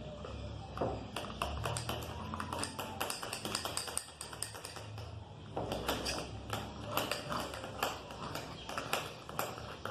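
A spoon tapping and scraping against a bowl in quick, irregular clicks while stirring a glue-based slime mixture.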